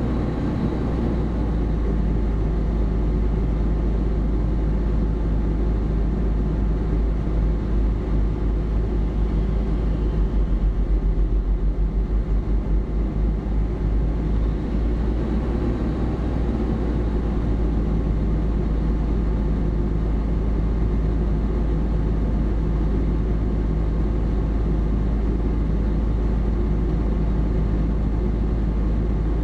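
Fire engine's motor running steadily while parked, heard from its dash camera as a constant low rumble, with a few seconds of pulsing about ten seconds in.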